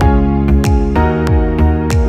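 Background music: sustained soft chords over a steady beat, with a drum hit about every 0.6 seconds and a chord change about a second in.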